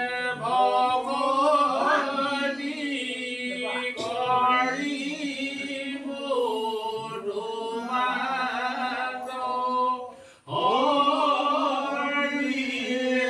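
A group of men singing together without instruments, a devotional chant with long held notes. The singing breaks off briefly about ten seconds in, then resumes.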